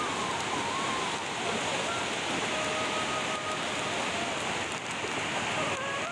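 Swollen, muddy floodwater rushing fast through a canal after heavy rain, a steady, even rush of water with no let-up.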